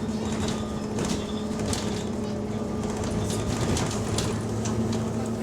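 Bus diesel engine running with a steady drone, with irregular short sharp puffs from a leaking exhaust.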